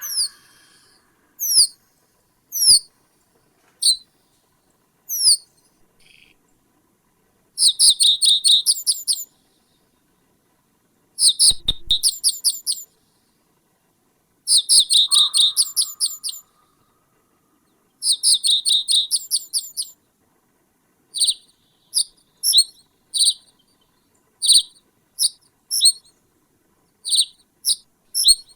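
Small songbird calling: a few sharp, high, falling single notes, then four rapid chattering bursts of about a second and a half each, then a quicker run of short repeated notes near the end.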